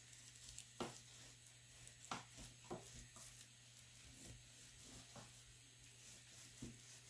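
Chef's knife cutting through a raw pork loin on a plastic cutting board: faint, irregular taps and ticks as the blade works through the meat and meets the board.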